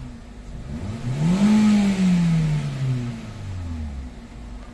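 A 2016 Hyundai Accent's four-cylinder petrol engine is revved once. Its pitch rises quickly about a second in, then falls slowly back toward idle over the next few seconds. With a new cylinder 1 ignition coil fitted to cure a misfire, it runs smoothly, "super stable".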